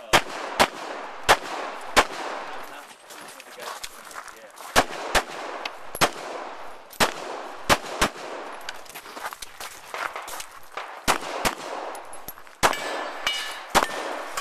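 Handgun firing a string of shots, sharp cracks mostly in quick pairs about half a second apart, with pauses of one to three seconds between pairs, and fainter shots in between.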